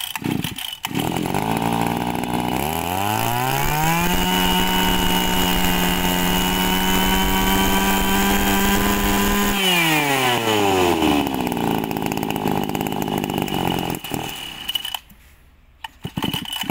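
Mitsubishi TL26 brush cutter's 26cc two-stroke engine starting about a second in and idling. It revs up to a steady high speed for about six seconds, then drops back to idle, with a crisp running sound. Near the end it falls quiet for about a second, then runs again.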